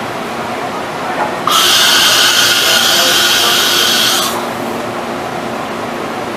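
Miyano TSV-35 CNC drill and tap center running with a steady hum. About a second and a half in, a loud high hiss starts abruptly and cuts off sharply about three seconds later.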